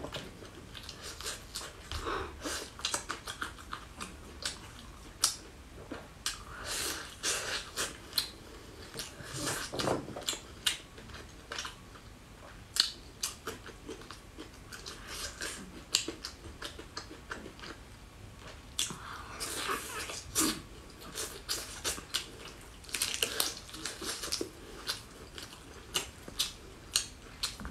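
A person biting and chewing braised pork ribs close to the microphone: many short, irregular wet clicks and smacks of mouth and meat.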